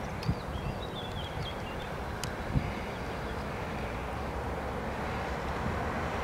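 Steady, distant rumble of an Airbus A380's jet engines as the airliner comes in on final approach. Small birds chirp briefly in the first second or so, and there is a soft knock about two and a half seconds in.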